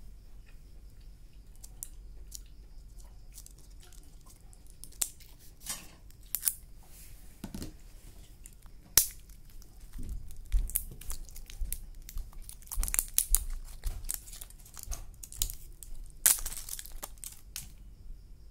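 Small clicks, taps and crinkly rustling as two Aiwa alkaline AA batteries are handled and knocked against each other in the fingers. The sounds are sparse at first and come thick and fast in the second half.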